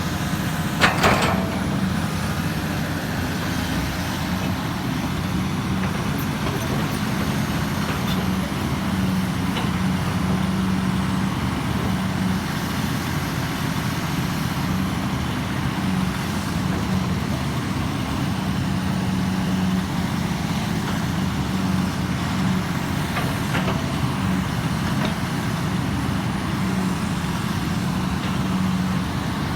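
Hydraulic excavator's diesel engine running steadily under work, with a couple of sharp knocks about a second in.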